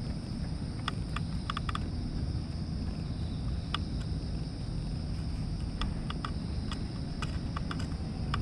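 Domestic cat purring as it is stroked: a continuous low rumble. Under it runs a steady high-pitched drone, with short sharp clicks now and then.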